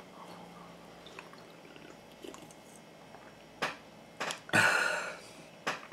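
A man drinking from a can, faint sips and swallows, then a sharp knock about three and a half seconds in and a louder short breathy rush about a second later.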